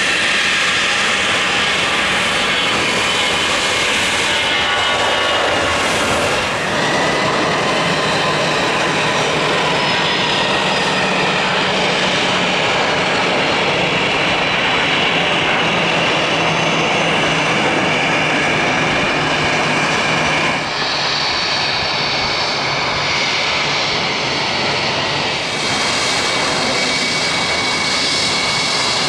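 Business jet turbofan engines running: a loud, steady rushing noise with a high whine over it, first from a jet taxiing, then from jets climbing out after take-off. The sound changes abruptly about 6, 21 and 25 seconds in.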